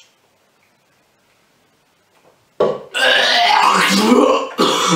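Near silence, then about two and a half seconds in a young man starts gagging and retching loudly, with a short break near the end. It is the retching of someone close to throwing up after drinking a revolting milkshake mix.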